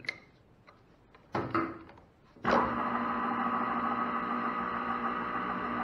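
A couple of brief knocks, then about two and a half seconds in the metal lathe is switched on and runs at a steady speed with a hum made up of several steady tones.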